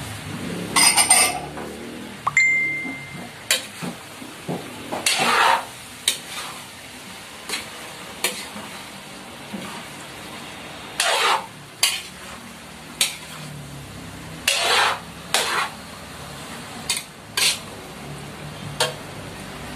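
Metal spatula scraping and clanking against a steel wok while stirring a thick pork stew, in irregular strokes about once a second.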